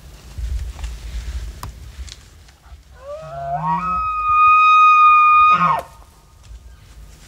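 Bull elk bugling: a low grunt rising into a long, high whistle, held for about a second and a half before it breaks off and drops sharply.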